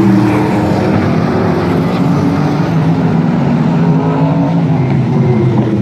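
Several sprint car engines running at racing speed around a paved oval, their overlapping engine notes shifting slightly in pitch as the cars go through the turns.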